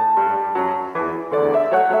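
Two grand pianos playing a polka together in a quick, detached rhythm, with a brief dip about halfway through before new chords come in.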